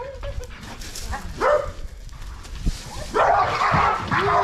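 Pit bulls barking in short bursts, loudest and densest from about three seconds in.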